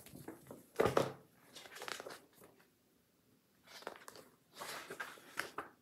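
Pages of a glossy cross-stitch pattern book being handled and turned: several short paper rustles, the loudest about a second in.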